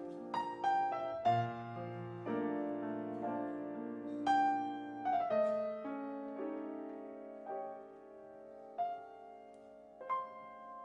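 Grand piano playing a slow ballad passage: single notes and chords struck and left to ring, growing quieter and sparser, with a few lone notes near the end.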